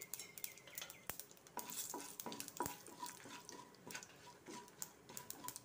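Faint crackle of mustard seeds popping in hot oil, with many sharp, irregular pops over a soft sizzle, as a wooden spatula stirs chilli powder through the tempering in a non-stick kadai.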